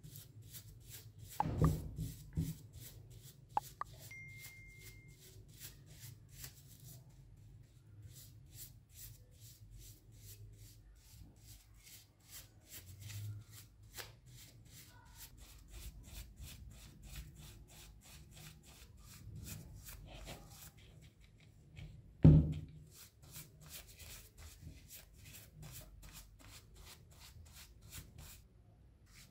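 Stiff-bristled paintbrush scrubbing a small brass vase wet with vinegar, in a quick even rhythm of about five strokes a second. A few sharp knocks break in, the loudest about 22 seconds in.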